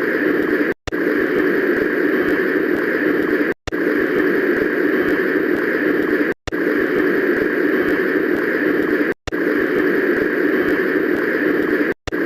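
Cartoon waterfall sound effect: a loud, steady rush of falling water, played as a short loop that cuts out for a split second about every three seconds, five times in all.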